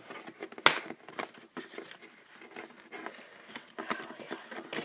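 Crinkling and small clicks from handling Pokémon trading cards and pack wrappers, with a louder crackle just under a second in.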